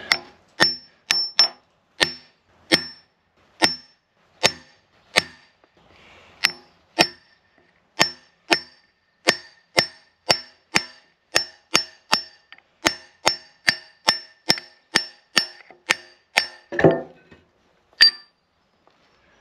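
Hammer blows on a steel drift driving a stuck bevel gear out of a cast-iron machine bed: about thirty sharp, ringing metallic strikes, quickening to two or three a second. Near the end comes a duller clattering knock, then one last strike.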